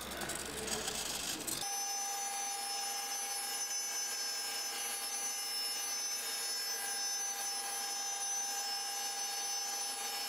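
CNC router spindle running at constant speed, a steady whine made of several high tones, while it carves a wooden panel. It cuts in suddenly about a second and a half in, after a brief stretch of noisy clatter.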